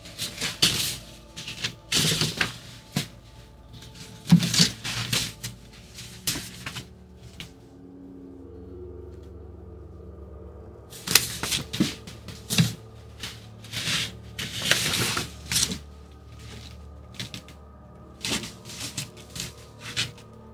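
Sheets of paper and a folder being handled, with crisp rustling and tapping in two spells and a quieter stretch in the middle, over faint background music.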